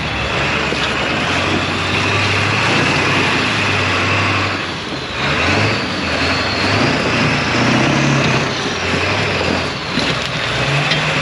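Off-road truck engine running and revving up and down, with a steady high whine over it.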